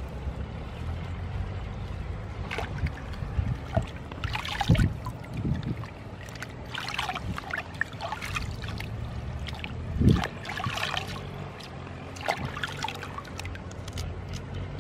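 Water splashing and trickling as bunches of leafy greens and spring onions are swished and rinsed by hand in shallow water. The splashing comes in irregular bursts, the loudest about four and a half seconds in and again near the ten-second mark.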